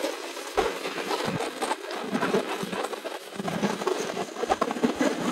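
Wind buffeting and rushing over the microphone of a moving motorcycle, mixed with the bike's running and road noise.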